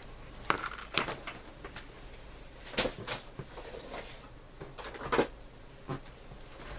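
Scattered light clicks and knocks of small model-kit parts and tools being handled and set down on a workbench, about half a dozen over the stretch.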